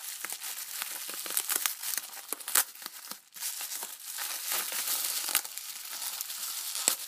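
Bubble wrap packaging being handled and unwrapped by hand, a dense crinkling rustle full of sharp little clicks, with a brief pause about three seconds in.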